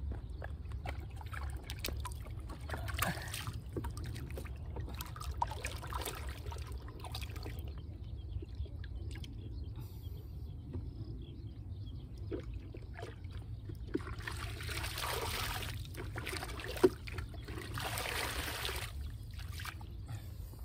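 Water pouring and splashing as a plastic tub holding caught crucian carp is emptied into a pond, with small splashes and knocks throughout. There are two longer pours of a second or two each, about three-quarters of the way through. A low steady rumble runs underneath.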